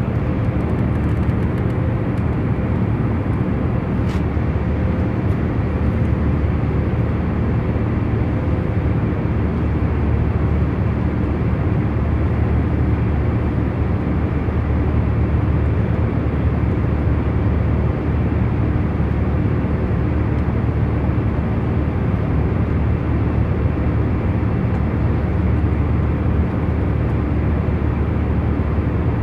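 Airliner cabin noise in cruise flight: a steady low rumble and hum of the engines and airflow, unchanging throughout, with a faint click about four seconds in.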